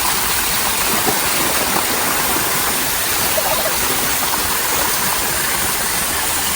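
A river running steadily past the campsite: a dense, even rush of flowing water.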